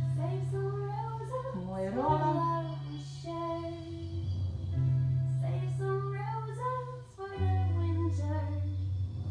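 Background music: a song with a voice singing a gliding melody over held bass notes that change every two to three seconds.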